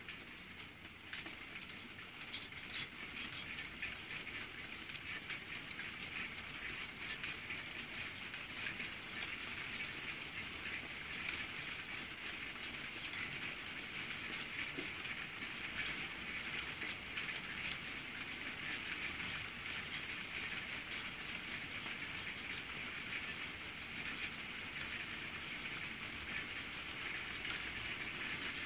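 Rain falling on a tiled patio: a steady patter of many small drops that grows a little heavier over the first few seconds, then holds even.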